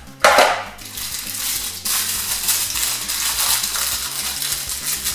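A chocolate candy's wrapper crinkling and crackling as it is unwrapped by hand, with a short rustle of the candy box near the start.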